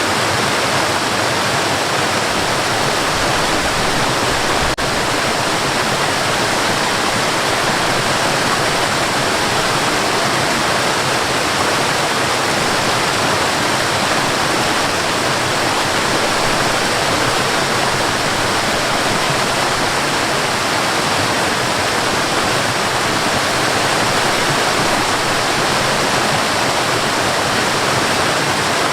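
Waterfall: a steady, dense rush of falling water.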